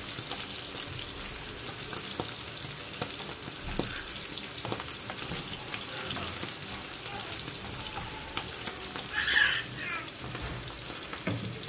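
Halved mushrooms sizzling as they fry in oil in a non-stick frying pan, with the spatula scraping and tapping the pan now and then. A brief high-pitched sound comes about nine seconds in.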